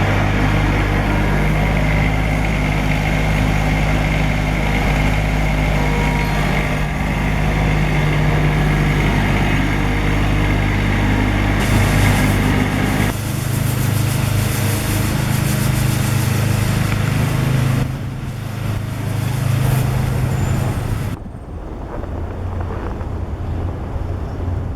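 Engine of a heavy vehicle running close by with a steady low hum. Its pitch shifts about halfway through, and it cuts off sharply near the end, leaving quieter street and wind noise.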